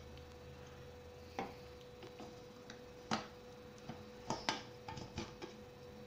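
Faint metal clicks and clinks, about half a dozen spread unevenly, as the lid of an aluminium pressure cooker is twisted loose and lifted off once the whistle weight is out and the pressure is gone.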